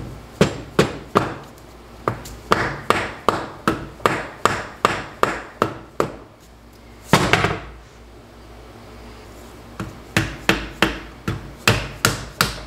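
Mallet blows on a tool set against a TH350 automatic transmission's case, about three sharp strikes a second for several seconds. A single louder bang comes in the pause, then another run of strikes near the end.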